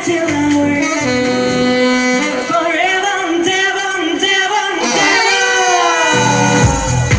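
Live deep house music with a woman singing and a saxophone playing over held synth notes; the kick drum and bass are dropped out for a breakdown and come back in about six and a half seconds in.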